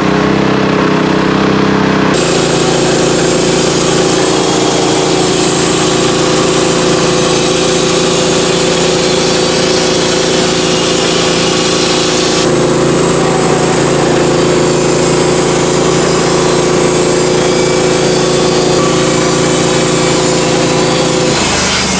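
Sawmill engine running steadily while the saw cuts through a log. A loud sawing hiss sits over the engine hum from about two seconds in until just before the end.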